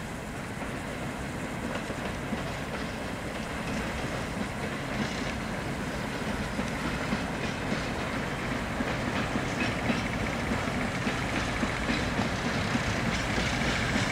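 Two Class 58 diesel locomotives hauling a loaded train of ballast hopper wagons, approaching and growing steadily louder: a low engine drone, with wheels clicking over rail joints in the second half and a thin high whine coming in near the end.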